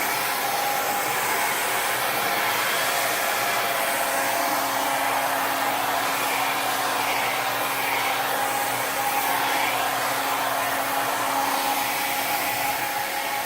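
Handheld hair dryer running steadily on its high setting: a loud, even rush of air with a steady motor hum underneath.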